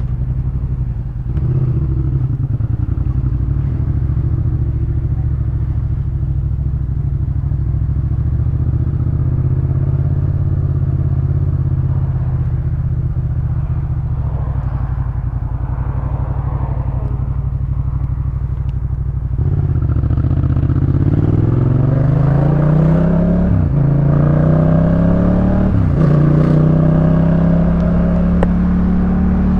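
Yamaha MT-07's parallel-twin engine through an aftermarket Jeskap K4 full exhaust system. It runs at a steady pitch for most of the time, then accelerates hard about two thirds of the way in, its pitch rising in three pulls broken by gear changes before it settles at a higher steady note.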